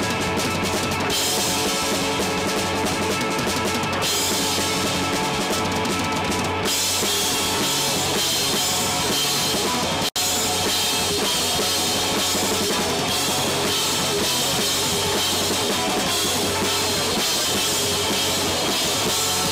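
Live rock band playing: drum kit and electric guitar, with the sound cutting out for an instant about halfway through.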